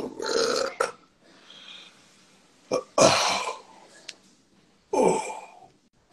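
A man making several loud, throaty vocal bursts without words, each under a second long, with short pauses between; the sound is of the belch or guttural kind rather than speech.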